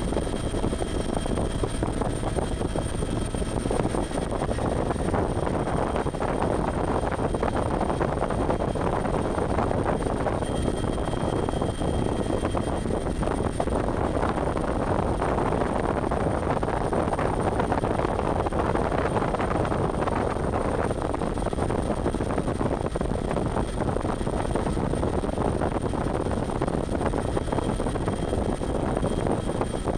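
Bell 412 twin-engine helicopter in flight, a steady, unbroken drone of engine and rotor noise with a faint high whine above it.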